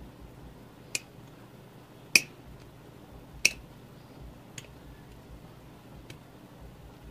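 Five short, sharp clicks and taps of small hard parts or tools being handled on a workbench, the loudest about two and three and a half seconds in.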